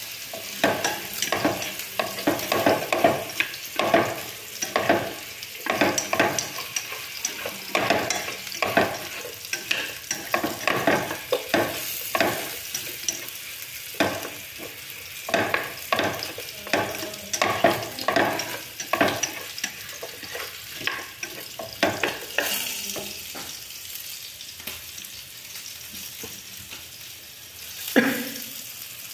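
Meat, potato and onion sizzling in an aluminium pot while long wooden chopsticks stir and scrape through it, knocking often against the pot. The stirring stops about 22 seconds in, leaving the sizzle on its own, and there is one louder knock near the end.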